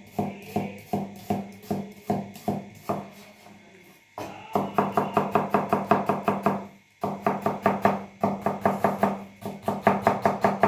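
Kitchen knife rapidly mincing vegetables on a cutting board, about six quick knocks a second. The knocks are lighter for the first few seconds, then heavier, with a short pause about seven seconds in.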